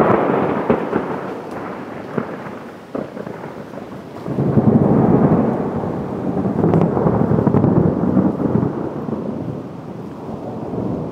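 Thunder: a sudden loud clap at the very start that rolls off into rumbling, then a second long rumble that swells about four seconds in and slowly fades.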